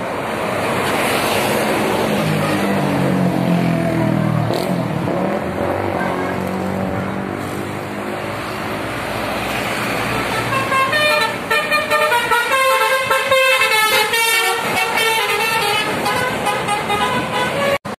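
Road traffic passing, with a heavy vehicle's engine sweeping up and down in pitch. From about eleven seconds in, a tour bus's telolet horn plays a quick run of changing musical notes for about four seconds.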